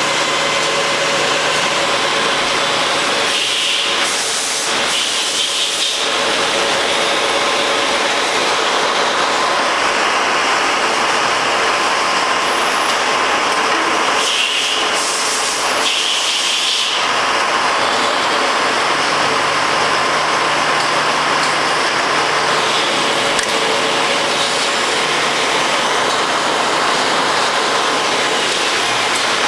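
Citizen L-20VIII Swiss-type CNC lathe running a production cycle on small metal parts: a steady machine hum with the hiss of coolant spray and cutting. Twice the sound shifts for a couple of seconds, about 3 s and 15 s in.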